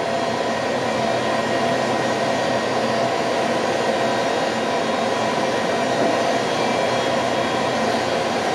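Steady rushing noise with a faint, even hum on a cargo ship under way, unchanging throughout.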